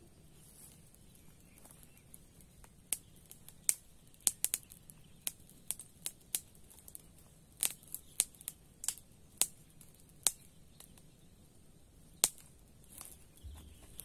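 Irregular sharp clicks and snaps, about twenty of them spread unevenly, over a faint steady background hiss.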